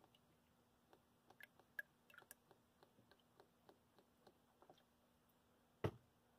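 Near silence with faint scattered ticks and drips as coconut milk dribbles from a carton spout into a measuring cup, then one sharp knock near the end.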